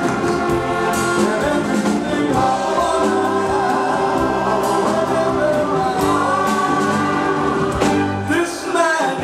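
A male R&B vocal group singing live in close harmony, holding long chords, backed by a band.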